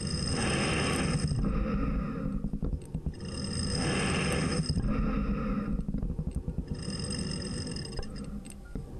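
Gas rushing through an anesthesia breathing circuit as its rubber reservoir bag is squeezed by hand: airy whooshes about a second long, a few seconds apart, over a steady low rumble.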